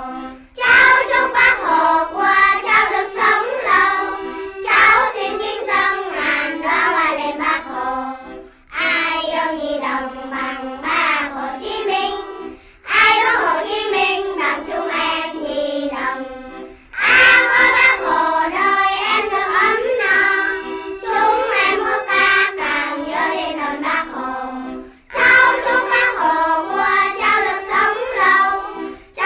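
A Vietnamese children's song: a child singing over musical accompaniment, in phrases of about four seconds with short breaks between them.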